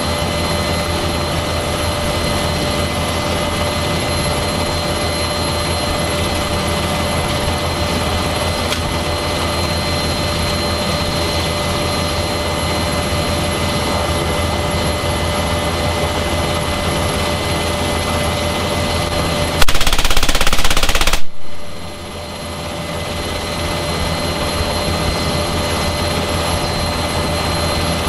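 Inside the cabin of an NH90 transport helicopter in flight: the steady noise of its turbines and rotor with a high whine. About two-thirds of the way through, the door-mounted M3M 12.7 mm (.50 calibre) heavy machine gun fires one rapid burst of about a second and a half. The cabin noise then dips and swells back.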